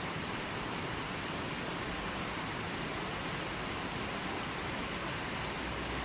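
River water rushing steadily over rocks and stones, an even hiss with no breaks; a low rumble joins in near the end.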